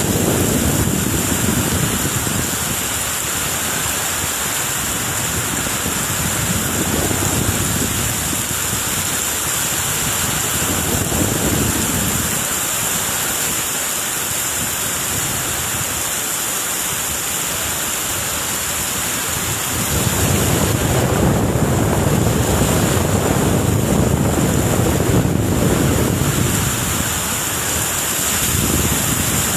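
Strong wind gusting with heavy rain, the gusts buffeting the microphone. The wind picks up about two-thirds of the way in.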